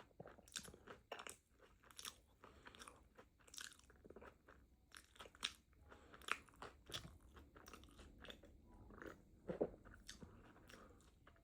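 Faint chewing and crunching of a fried avocado taco, with many irregular short mouth clicks.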